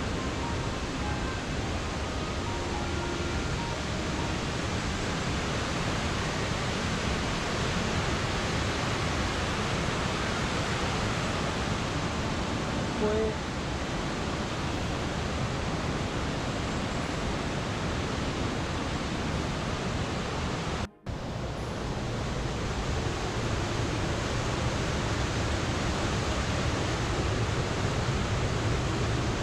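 Steady rush of a rocky mountain stream's rapids and small falls, an even hiss-like roar that cuts out briefly about two-thirds of the way through.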